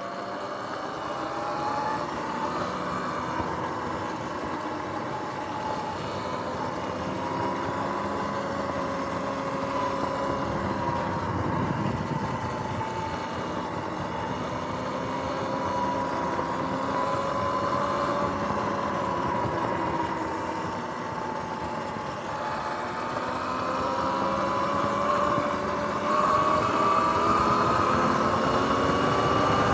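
Sur-Ron X electric dirt bike riding on pavement: the motor and drivetrain whine in two pitches that slowly rise and fall with road speed, over a steady rush of tyre and wind noise. Near the end the whine climbs higher and gets louder as the bike speeds up.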